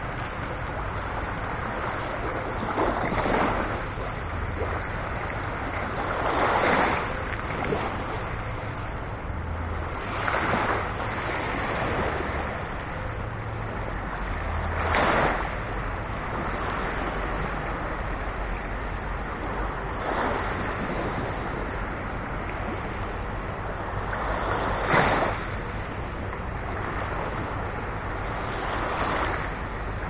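Small waves of a calm sea breaking and washing up a shell-covered beach. A soft swell of surf comes every three to five seconds over a steady hiss.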